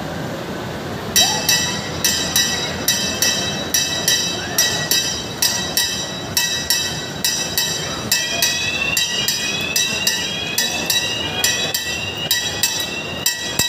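Mall kiddie train ride's bell ringing over and over, nearly three strikes a second, starting about a second in. From about eight seconds in, a repeated rising tone joins the ringing. A steady crowd hubbub runs underneath.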